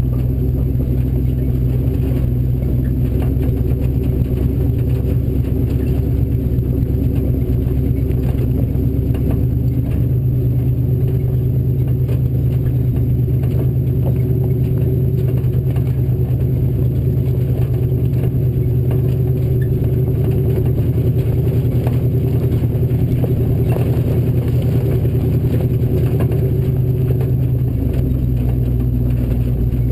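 Ford Bronco off-road race truck's engine running steadily under way, with knocks and rattles over the top; the engine note changes near the end.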